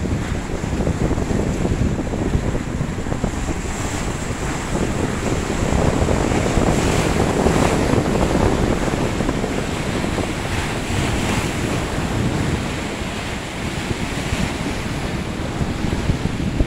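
Gusty wind on the microphone over choppy sea, with waves and surf washing against jetty rocks: a steady rushing noise, a little louder in the middle.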